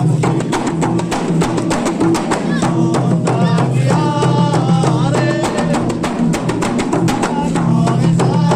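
Hadrah music: rebana frame drums beating a quick, steady interlocking rhythm under voices singing a melody.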